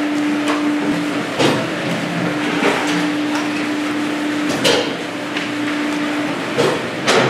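A steady noisy rush with a constant hum that drops out briefly twice, and a sharp knock or clatter every second or two, five in all, the last two close together near the end.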